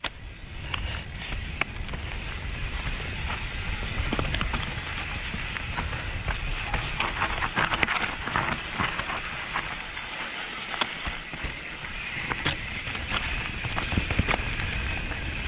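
Mountain bike rolling fast down dirt singletrack: knobby tyres on dirt and loose stones, with frequent clicks and knocks from the bike rattling over the bumps, over a low rumble of wind on the camera microphone.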